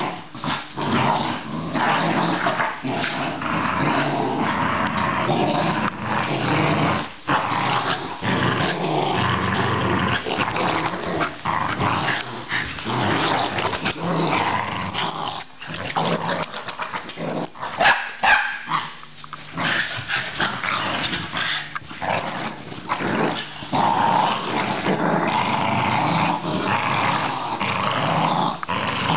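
Several Australian terriers growling almost without a break as they wrestle and tug at a cloth toy, with a louder burst about two-thirds of the way through. The growls are play growls in a tug game, not a fight.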